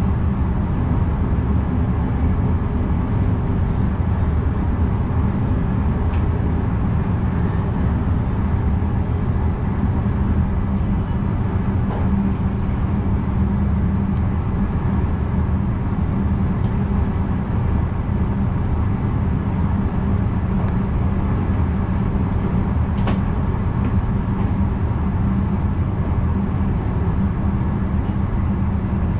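NS VIRM double-deck electric train running steadily, a constant low rumble of wheels on rails heard from the driver's cab, with a few faint clicks scattered through it.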